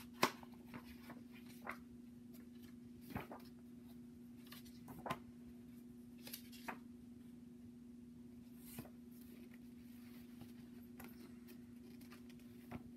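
Origami paper and the pages of a paperback book handled: scattered short, crisp paper rustles and light taps, the loudest just after the start. A steady low hum runs underneath.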